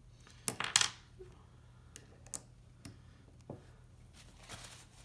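Small metal ratchet parts clinking as they are handled and set down on a hard surface: a quick cluster of sharp clinks about half a second in, then a few single clicks and light handling noise.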